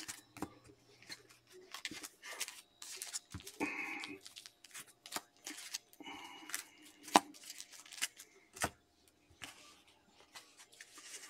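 Sports trading cards being handled and set down, with scattered sharp clicks and short bursts of tearing and crinkling plastic as the next sealed pack is opened.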